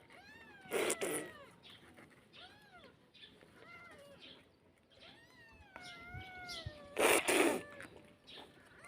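Cats meowing over and over in short rising-and-falling mews, with two louder, harsher cries: one about a second in and one near the end.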